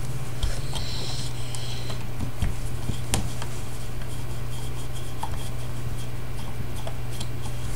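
Screwdriver working a small screw in the flight recorder's metal cover: faint scraping and rubbing with a few light clicks, one sharper click about three seconds in. A steady low hum runs underneath.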